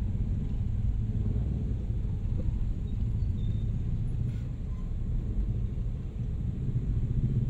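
Steady low rumble of slow street traffic, heard from inside a vehicle's cabin, with motorcycles and tricycles close alongside.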